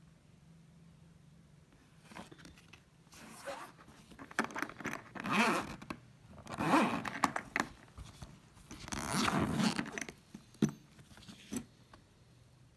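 The zipper of a nylon pet carrier backpack being worked open, with the fabric rustling, in several rasping pulls, the three loudest about a second long, followed by a couple of sharp clicks near the end.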